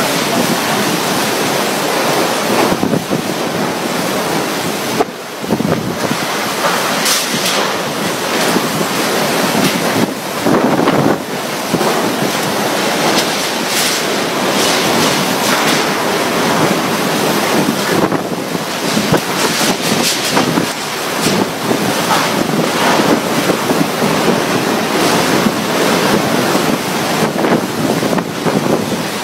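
Strong tropical-storm wind blowing in gusts, buffeting the microphone.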